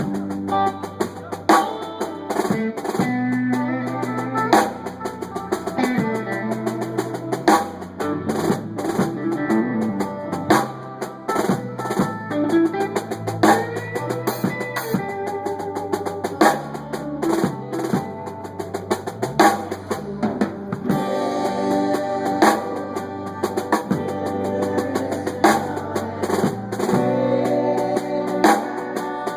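A band playing at a sound check, with the drum kit up front: snare and bass drum hits and drum rolls over a bass line and melody instruments.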